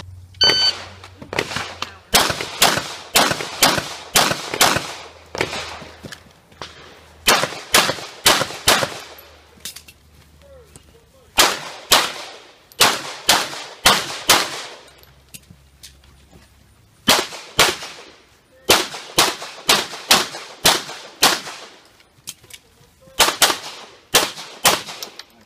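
Rapid pistol fire from a Production-division handgun: dozens of sharp shots in quick strings of two to six, with short pauses between strings as the shooter moves to new positions.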